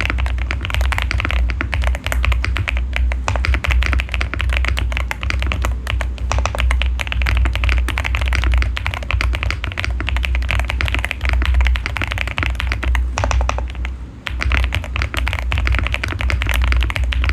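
Fast, continuous typing on a VGN V87 mechanical keyboard with Homoo Sea Salt switches and Cherry-profile Apollo keycaps: a dense stream of keystroke clacks, with a brief lull a little past the middle.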